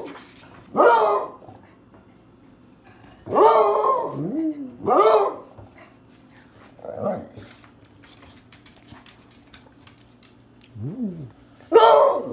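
Beagle baying: about half a dozen howling barks, each rising and then falling in pitch, with short pauses between them and the loudest near the end.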